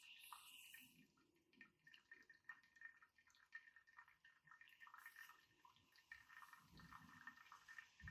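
Espresso from a vintage Vesuviana espresso machine dripping into a cup: faint, irregular drips as the brew runs out of the filter holder.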